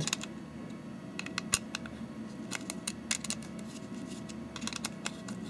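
Irregular small clicks and ticks of a screwdriver turning an adjustment screw in a 3D-printed plastic block, with the plastic parts handled in the hand, over a faint steady hum.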